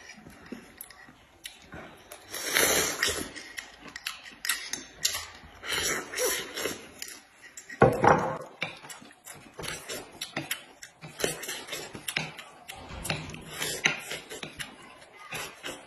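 People eating at a table: chewing and biting corn on the cob, with many small clicks of chopsticks against bowls and plates and a louder knock about eight seconds in.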